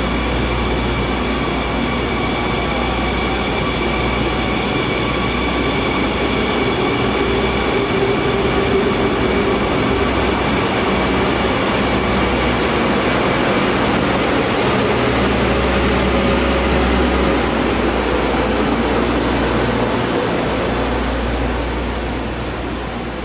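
KTM diesel multiple unit moving along a station platform: a steady train rumble with a high whine that fades over the first half, the sound easing off near the end.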